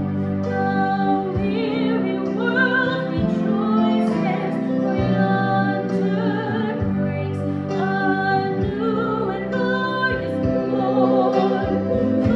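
Music: a classical-style solo voice singing long held notes with vibrato over a sustained instrumental accompaniment.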